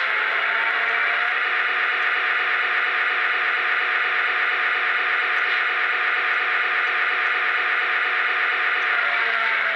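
Lionel EMD SD9 O-gauge model locomotive's onboard sound system playing a steady diesel engine idle while the model stands still.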